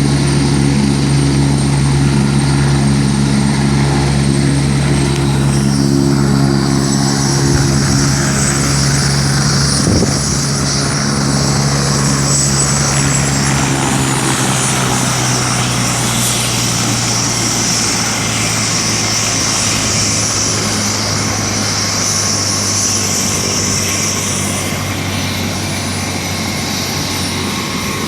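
Helicopter's turbine engine and rotor running loud and steady. The low rotor tones fade about halfway through while a high turbine whine carries on.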